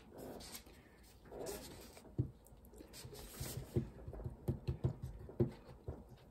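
Soft rustling as a plastic squeeze bottle of white glue is picked up, then a run of small irregular clicks and taps, several a second, as the bottle is squeezed and its nozzle worked over a diorama base.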